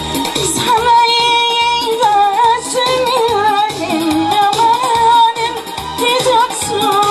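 A woman singing into a handheld microphone, amplified through a PA system over musical accompaniment with a steady beat, holding long notes with a wavering vibrato.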